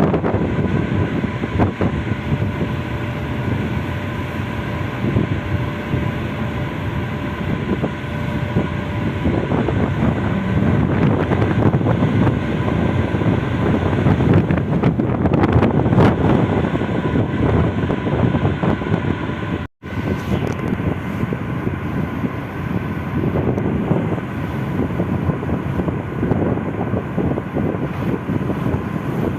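Strong wind buffeting the microphone over a steady engine drone with a few faint steady tones. The sound cuts out for an instant about twenty seconds in.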